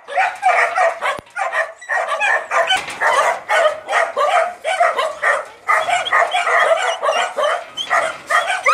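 Several dogs barking and yipping behind a metal fence, rapid overlapping barks several a second with no break.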